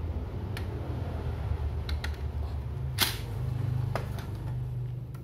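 A few sharp plastic clicks and knocks as the Kyocera M2040dn drum unit is handled, the loudest about three seconds in, over a steady low hum.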